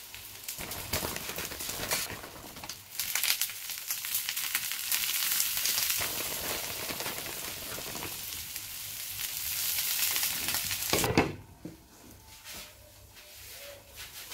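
Egg and potato-chip mixture frying in a nonstick pan, a steady crackling sizzle. About eleven seconds in there is a sharp clatter as the glass lid goes on, and the sizzle drops to a faint, muffled hiss.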